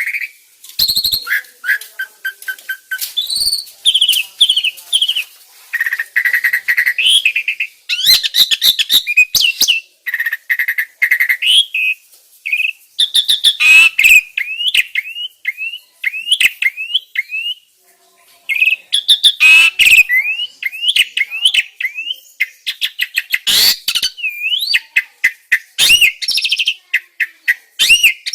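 Starling song: a continuous, varied run of loud whistles, chirps and harsh chatter. In the middle comes a series of short rising whistled notes, about two a second.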